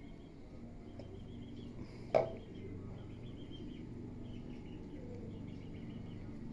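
Faint bird chirps repeating over a low steady hum, with one sharp knock about two seconds in.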